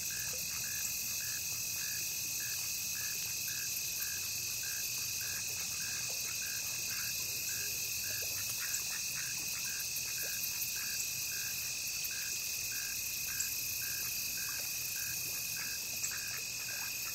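Summer outdoor insect chorus: a steady high-pitched drone with a high hiss above it, and a short call repeating evenly about twice a second.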